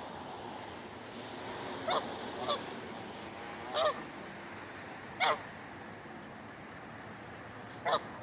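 Geese honking: five short, separate honks spread irregularly over several seconds, over a steady background noise.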